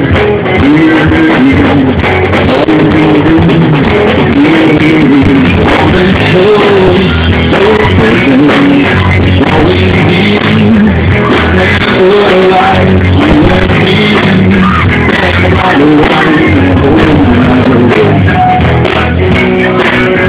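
Live rock band playing a song: a guitar and a singing voice carrying a melody over a steady backing, loud throughout.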